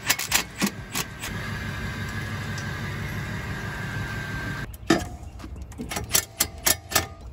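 A cordless power tool backing out the last intake manifold bolt: a few short bursts, then a steady motor whine that runs for about three seconds and stops suddenly. After that comes a string of sharp metallic knocks and clunks as the aluminium intake manifold is worked loose.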